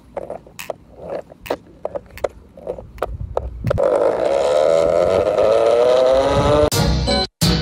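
Electric skateboard hub motors whining as the board accelerates, a loud whine climbing steadily in pitch starting about four seconds in; before it, a string of sharp irregular clicks. The sound cuts off briefly near the end.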